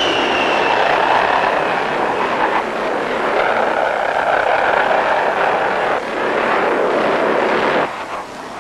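Aircraft engine noise: a steady rushing roar that shifts abruptly twice and drops away near the end.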